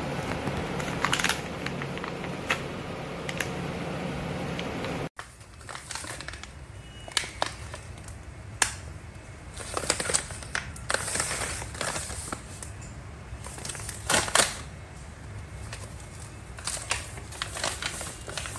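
Plastic pet-treat pouches crinkling and rustling as they are handled, in irregular crackly bursts, loudest about ten and fourteen seconds in. Before that, for about the first five seconds, there is a steady background hum with a few clicks.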